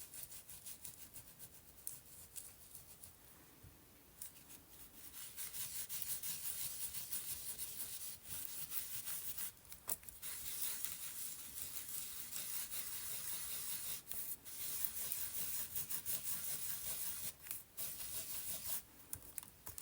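A damp napkin rubbed back and forth over a stencil on an old book page, working ink down into the stencil's small holes: a dry, scratchy rubbing in quick strokes. It is faint at first and gets steadier and louder after a few seconds.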